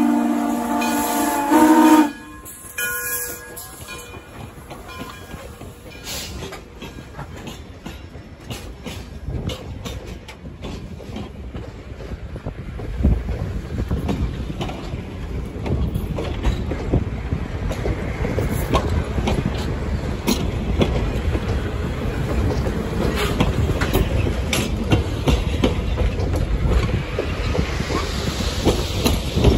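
Steam locomotive 1630's whistle sounding a steady chord that cuts off about two seconds in, followed by its train of heavyweight passenger cars rolling past, wheels clicking over the rail joints, growing louder toward the end.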